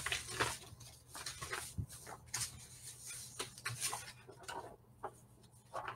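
Faint, irregular clicks and taps of a computer mouse and keyboard over a steady low electrical hum.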